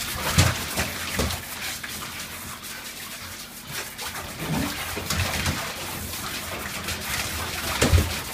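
Water splashing and sloshing in a bathtub while a husky puppy is washed, with scattered low thumps.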